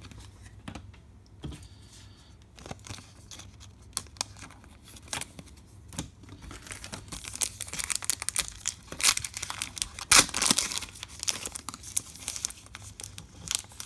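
Trading cards handled with a few light clicks, then a foil trading-card pack crinkling and tearing as it is opened, loudest about ten seconds in.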